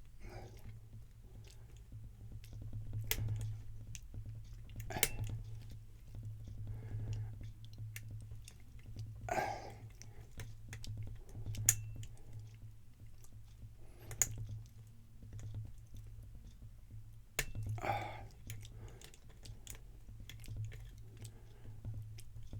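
Lock pick and tension wrench working inside a Guard Security 365 padlock: scattered small metallic clicks and scrapes as the pins are probed and set, with no opening. A steady low hum runs underneath.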